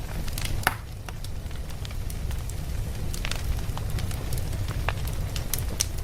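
Wood fire burning, with a steady low rumble and irregular sharp crackles and pops.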